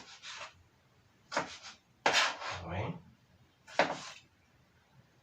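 Kitchen knife slicing tomatoes on a cutting board: short scraping strokes in four brief bursts about a second apart.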